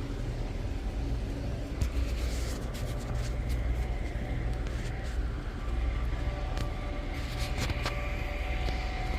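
Street ambience: a steady low rumble, with scattered sharp clicks and clatter through the middle.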